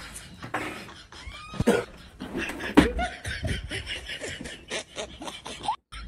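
A man's wordless vocal noises, with short clicks, rustling and knocks as a blanket is flung about on a bed.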